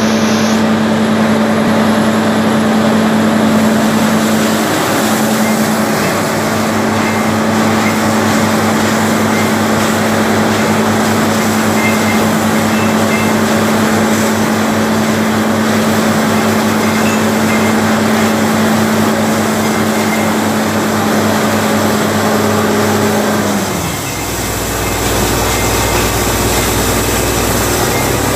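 Truck-mounted borewell drilling rig running loud and steady: its engine and air compressor drive the drill while compressed air blasts water and mist up out of the borehole with a constant rushing hiss. About 24 seconds in, the engine note drops to a lower, deeper hum.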